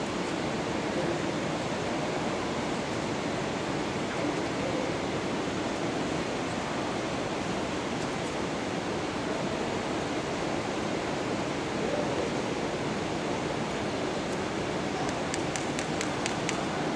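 Steady, even rushing noise of a large indoor exhibition hall's room tone, with a quick run of faint high clicks near the end.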